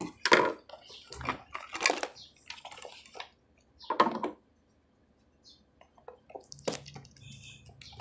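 Cardboard boxes handled and shifted on a wooden table: several short rustling scrapes in the first four seconds, then a lull.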